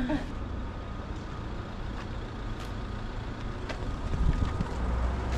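Engine of a heavy road vehicle running in street traffic. Its low rumble gets louder about four seconds in as it comes closer, with a faint steady whine over it.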